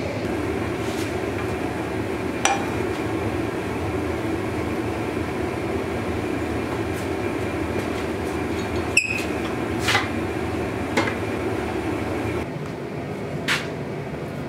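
Gas forge burner running with a steady rushing noise, broken by a handful of sharp metal clanks and knocks as the red-hot blade is handled with tongs and clamped into a steel jig on a vise, the loudest with a short ring. The rushing noise drops in level a couple of seconds before the end.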